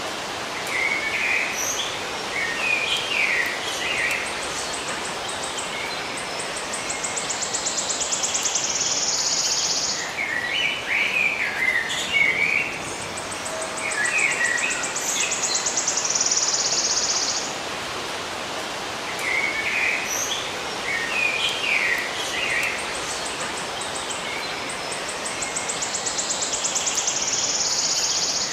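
Songbirds chirping in short bursts of twittering, with a high, rapidly pulsing insect buzz that swells for a few seconds and cuts off, the pattern recurring about every ten seconds over a steady background hiss.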